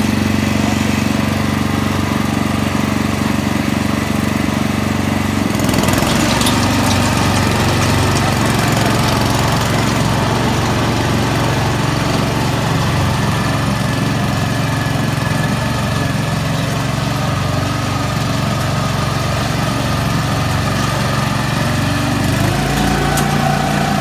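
The small engine of a Hasatsan H 130 self-propelled hazelnut harvester runs steadily. About five and a half seconds in, its sound changes abruptly, and it keeps running as the harvester moves along the orchard row picking up nuts. The engine note shifts again near the end.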